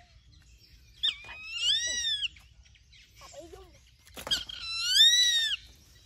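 Perched raptor giving two loud, drawn-out screams, each rising then falling in pitch, with a softer, lower call between them.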